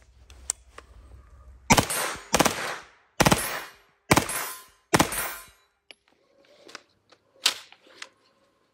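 CZ Skorpion Evo 3A1 9mm submachine gun firing on full auto: five short bursts of a few rounds each, about one burst a second, each trailing off in an echo. A few quieter single shots follow near the end.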